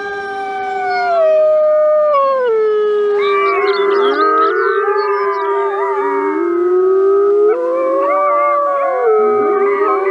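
Arctic wolves howling in chorus: several long overlapping howls that slide slowly up and down in pitch, with higher, broken yips and wavering notes mixed in around the middle and again near the end.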